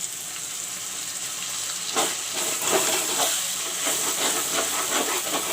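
Wet ginger-garlic spice paste sizzling in hot mustard oil in a pan, a steady hiss with sharper crackles from about two seconds in.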